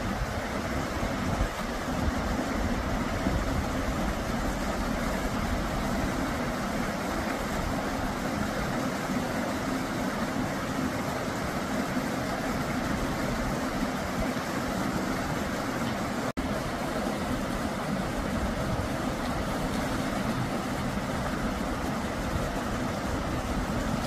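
Steady rush of a rocky mountain stream's flowing water, broken for an instant about two-thirds of the way through.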